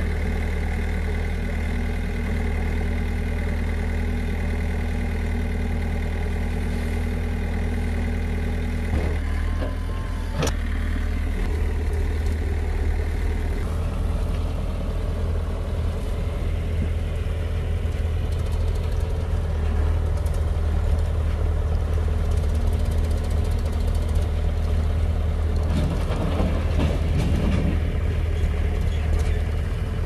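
Diesel engines of a JCB 3DX backhoe loader and a Mahindra 475 DI tractor running steadily at work. There is a single sharp knock about ten seconds in, and the engine sound grows rougher and busier near the end.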